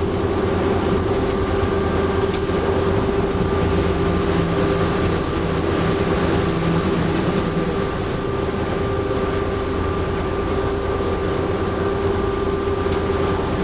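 The diesel engine of an FS D145 diesel-electric shunting locomotive running steadily, heard from inside the cab as a low drone with a faint steady whine above it.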